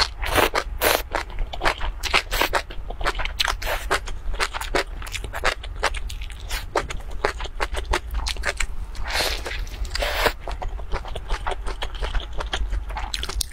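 Crunchy biting and chewing of a thin pancake wrap filled with lettuce and spicy fire-chicken instant noodles: a dense, irregular run of crisp crackles, close to the microphone.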